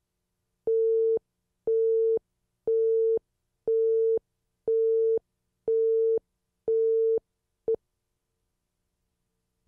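Countdown leader beep tone: a steady mid-pitched beep about half a second long, repeated once a second seven times, followed by one very short blip.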